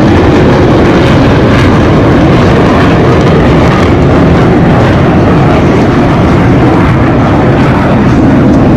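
Military jets of an aerobatic demonstration team flying overhead in smoke-trailing formation: loud, steady jet engine noise with no let-up.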